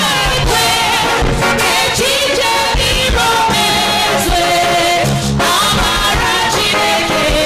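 Recorded gospel song played back: a sung melody over a band with a steady drum beat and bass.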